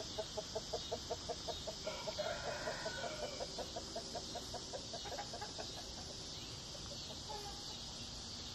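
A bird clucking in a quick, even run of short calls, about five a second, that trails off about six seconds in, over a steady high hiss.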